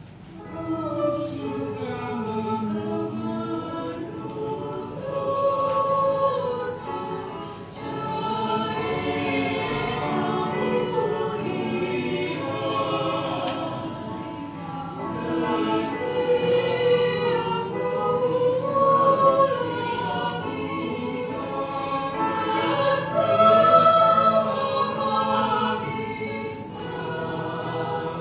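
Church choir singing a hymn of praise together, the sung line swelling and easing in loudness several times.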